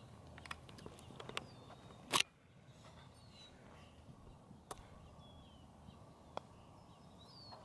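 Small birds giving short, high chirps that slide downward, one every second or two. A single sharp knock about two seconds in and a few faint clicks later.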